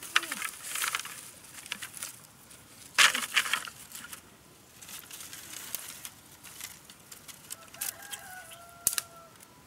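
Dry split bamboo sticks clattering and knocking together as they are handled and gathered, loudest about a second in and again around three seconds. Near the end a rooster crows once, one drawn-out call of about a second and a half.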